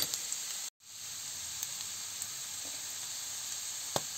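Slippery jack (butter) mushrooms and grated onion frying in a pan: a steady sizzle. The sound drops out for a moment just under a second in, and there is a sharp click near the end.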